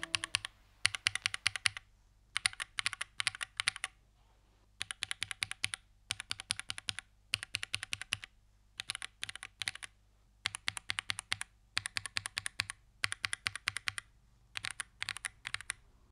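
Typing on an Epomaker Tide75 mechanical keyboard with Lemon switches, in short bursts of rapid keystrokes separated by brief pauses.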